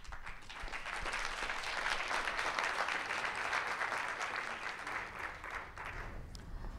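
Audience applauding. The clapping builds over the first couple of seconds and dies away about six seconds in.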